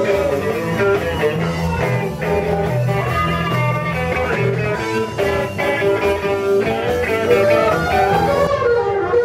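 Rock band playing without vocals: electric guitar lines over bass and drums.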